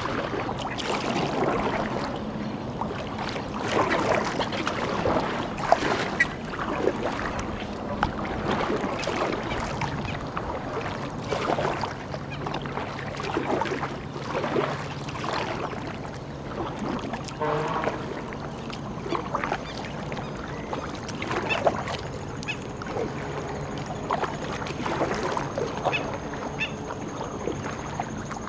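Kayak paddle strokes: the blades dip and pull through the water with splashing and dripping, a stroke every couple of seconds.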